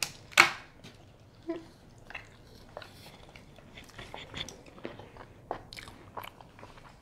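Close-miked mouth sounds of someone biting into and chewing a soft bread roll. One loud smack comes just under half a second in, followed by scattered wet chewing clicks and smacks.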